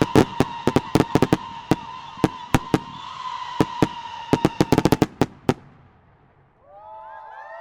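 Fireworks finale: a rapid barrage of sharp reports, several a second over a steady hiss, that stops about five and a half seconds in and fades away. Near the end a short pitched sound with bending, gliding tones follows.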